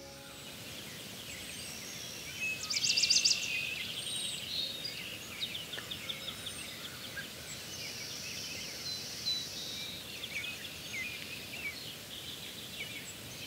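A chorus of small songbirds, many short chirps and whistles over a steady outdoor hiss, with one bird's rapid trill the loudest thing about three seconds in.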